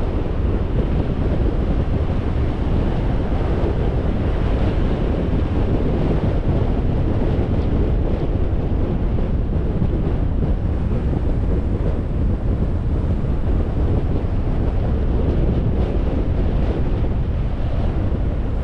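Steady rush of wind on the microphone mixed with the road noise of a car driving.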